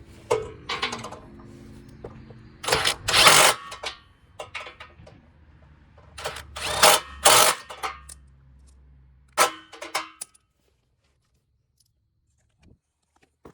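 A ratchet tightening bolts, in four short bursts of ratcheting, each under a second long.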